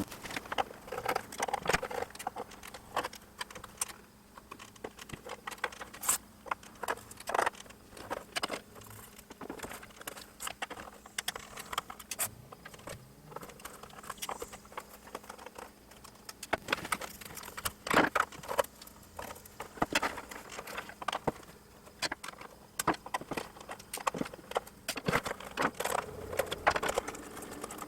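Irregular light clicks, taps and small metallic clatters from hands and tools working on the parts of an oscilloscope chassis during teardown, over a faint steady hum.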